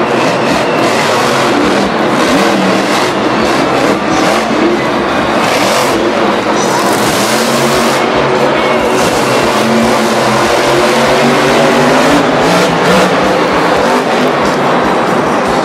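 Monster truck engines revving hard, their pitch rising and falling, with a harsher burst of noise about six to eight seconds in.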